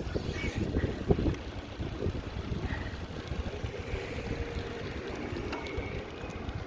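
City street traffic with a vehicle engine running nearby, a steady hum coming in about four seconds in, over a low wind rumble on the microphone.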